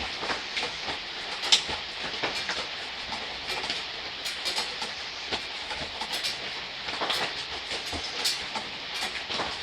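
Gentle rain falling steadily, with irregular drops tapping sharply close by; one louder drop hits about one and a half seconds in.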